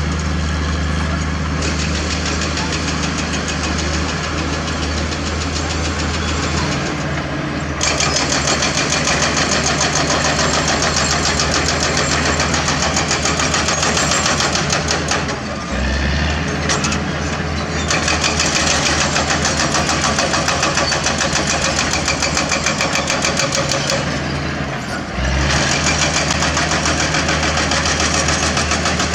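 Diesel engine of heavy earthmoving equipment running steadily. A fast, even rattling clatter joins about eight seconds in and drops away briefly twice.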